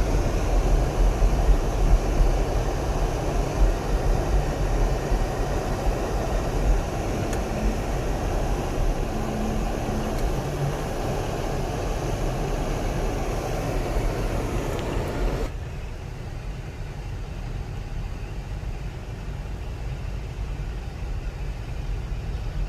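Car cabin noise while driving slowly on a snow-covered road: a steady low rumble of tyres and engine. About fifteen seconds in, the higher part of the noise drops away suddenly and the rumble goes on quieter.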